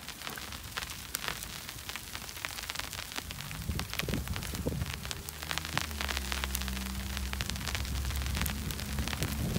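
Snow falling on an umbrella canopy: a dense, uneven patter of small ticks over a steady hiss. From about four seconds in, a low steady hum grows underneath.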